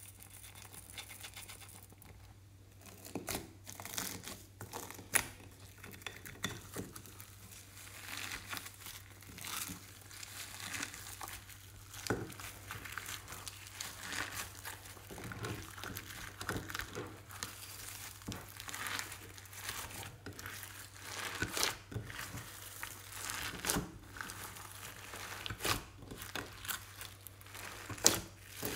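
Hands squishing and kneading glossy slime mixed with glitter and sequins, making irregular sticky crackles and pops.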